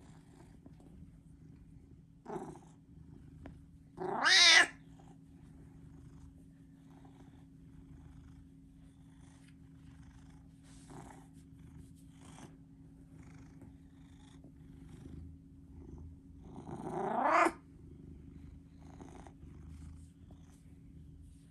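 Domestic cat purring steadily while being stroked on the head. It gives two loud rising calls, one about four seconds in and a longer one near the end.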